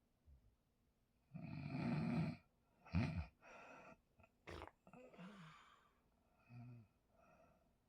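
A person snoring heavily: one long loud snore about a second and a half in, a shorter sharp one at about three seconds, then fainter irregular snorts and breaths with a brief click.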